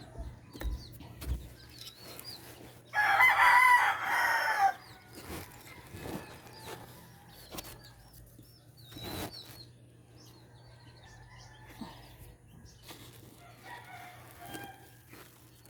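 A rooster crowing once, a loud call about three seconds in that lasts a little under two seconds. Faint chirps from small birds run through the rest.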